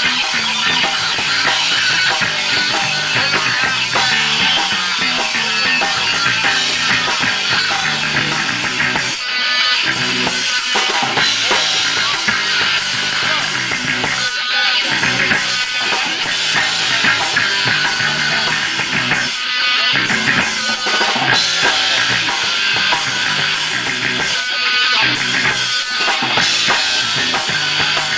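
A rock band playing loud with electric guitar and a full drum kit. From about nine seconds in, the band breaks off briefly about every five seconds.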